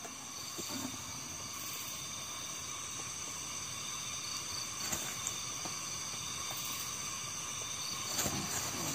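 Steady chorus of night insects, several constant high trills layered together, with a few faint ticks of rustling from the ground.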